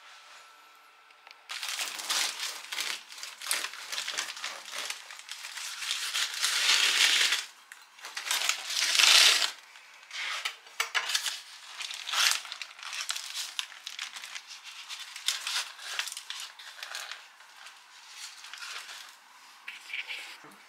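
Crusty loaf of bread being handled and cut, its hard crust crackling and crunching in irregular bursts that start about a second and a half in, are loudest around the middle, and thin to scattered crackles near the end.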